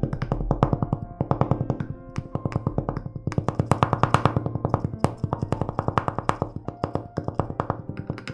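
Instrumental music: a plucked string instrument playing a fast, continuous run of short repeated notes, many per second.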